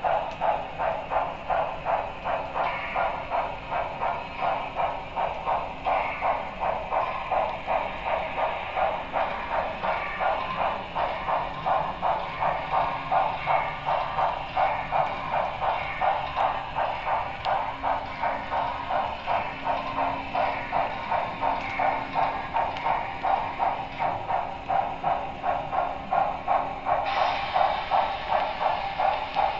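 HO-scale Broadway Limited Paragon3 2-10-4 steam locomotive's sound decoder playing steady, evenly repeating exhaust chuffs as the model runs, heard through its small on-board speaker.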